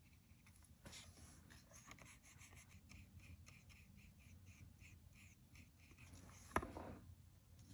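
Faint, soft strokes of a paintbrush spreading watercolour across black paper, about three strokes a second, with a single sharp tap near the end.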